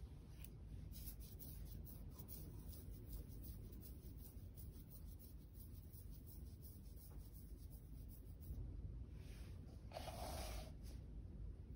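Quiet room with faint scratchy handling noises: a run of light ticks, then a short hiss about nine to ten seconds in.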